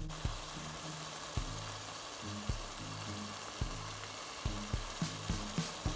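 Chopped onion, tomato and garlic-ginger masala frying gently in ghee in a pan, a steady soft sizzle, under background music with a regular beat.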